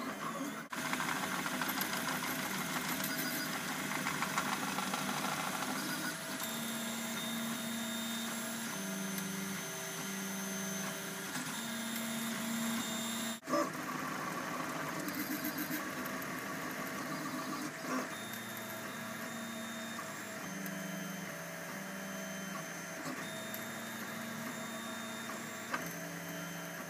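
MendelMax 1.5+ 3D printer printing: its stepper motors hum at pitches that change every second or so as the print head moves back and forth, over a steady mechanical whir.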